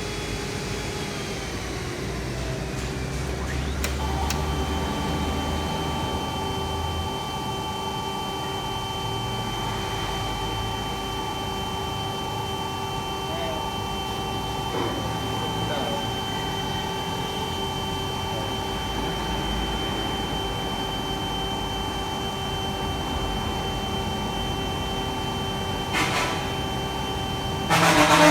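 Edwards iH600 dry vacuum pump running on a test run after an overhaul: a steady mechanical hum with several constant whining tones. Falling tones settle into the steady whine about four seconds in, with a click. There is a short sharp noise near the end.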